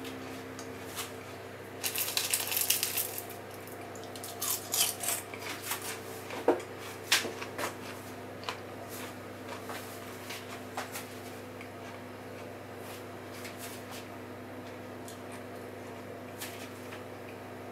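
Scattered clicks and short crackly clatters, busiest about two to three seconds in and again from about four and a half to seven and a half seconds, over a steady low hum.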